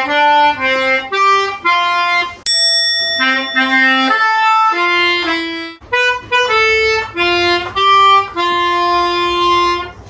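A keyboard harmonica (melodica) played by a child, picking out a birthday song one held note at a time.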